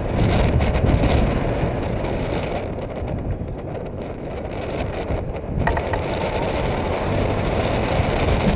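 Wind rushing over the microphone of a camera on a tandem paraglider in flight: a steady low rumble that grows fuller and hissier a little past halfway.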